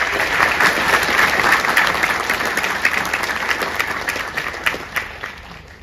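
Audience applause, many hands clapping, starting suddenly and dying away near the end.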